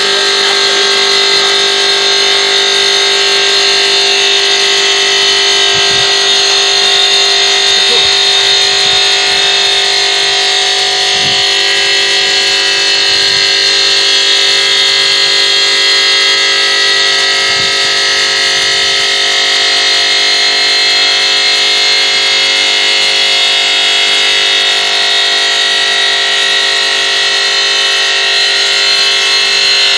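Diamond blade of a CNC five-axis bridge saw cutting a stone slab, a loud steady high-pitched whine with a lower hum beneath it.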